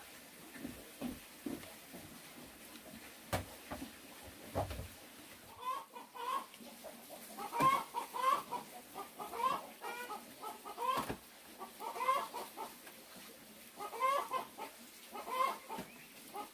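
A bird calling over and over in short pitched notes, often in pairs, starting about five and a half seconds in, after a few soft knocks.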